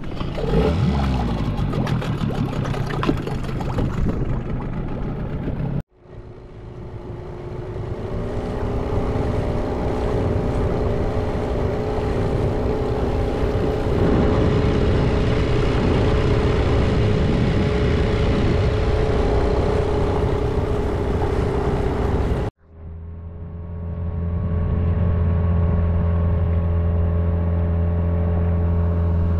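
Small Mercury outboard motor pushing an inflatable dinghy across the water, revving up with rising pitch at first, then running steadily at speed. The sound breaks off abruptly twice and comes back, the last stretch a deeper, steady drone.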